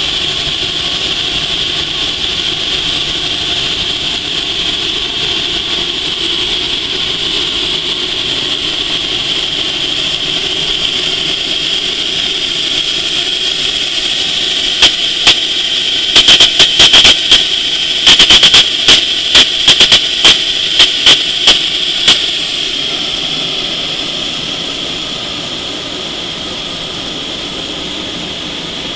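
Garrett air start unit's small gas turbine running at speed, a steady high-pitched whine over the rush of its air. About halfway through, a run of sharp clicks over several seconds, and the sound eases a little near the end.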